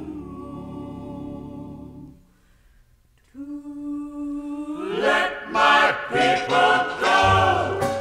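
Sung vocal music. A held chord fades out about two seconds in, then after a short pause a voice takes up a long held note and moves into a sung line, with a deep bass note coming in near the end.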